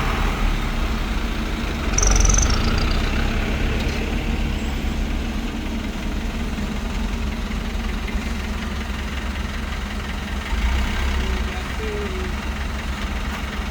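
Diesel engine of heavy construction machinery running steadily with a low rumble. It swells louder about two seconds in, with a brief high squeal, and again for a moment a little after ten seconds.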